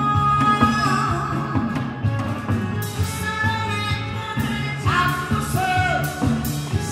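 A woman singing a trot-style song into a microphone over an amplified backing track with a steady beat, holding long notes that slide in pitch.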